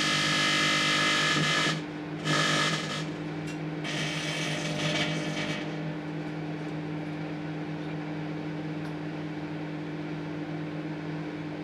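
Microwave oven running with a steady hum. In the first six seconds, loud bursts of electrical buzzing and crackling from incandescent light bulbs arcing inside the oven come three times, then stop, leaving only the hum.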